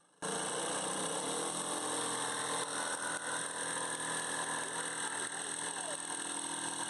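Corded jigsaw running steadily as its blade cuts curves into a plywood board, starting about a quarter second in.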